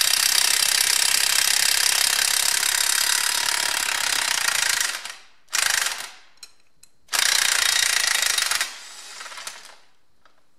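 Cordless impact wrench (nut gun) hammering as it undoes a tractor's front axle bolts. It runs about five seconds, gives a short burst, then runs again for a second and a half.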